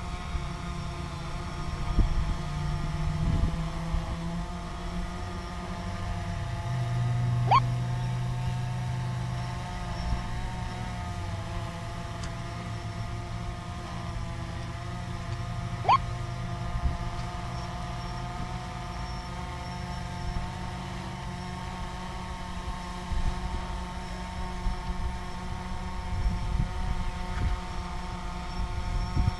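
Camera drone hovering overhead: a steady multi-tone propeller whine with a low hum beneath, and two quick rising whines, about 7 and 16 seconds in.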